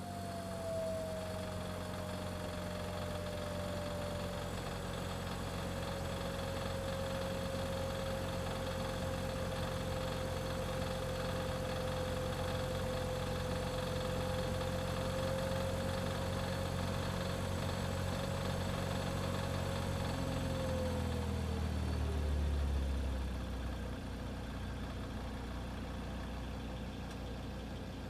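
2015 Volvo V60 T5 AWD's turbocharged engine idling just after start-up, with a steady whine that slowly sinks in pitch. About 21 seconds in the idle settles: the whine falls away and the engine note drops lower and briefly swells.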